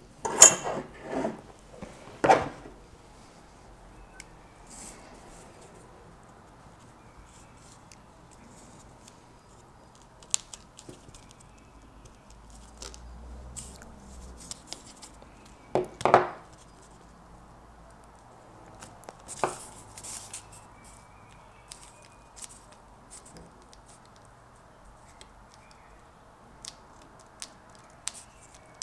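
Hand tools, scissors and needle-nose pliers, handled on a wooden tabletop. A few sharp knocks come in the first couple of seconds, with single knocks about midway, and faint clicks from the pliers working a thin metal strip in between.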